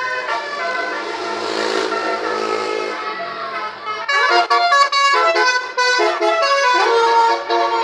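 Bus's multi-tone "telolet" musical horn sounding a held chord of several notes. From about four seconds in it plays a quick tune of short notes that step up and down in pitch.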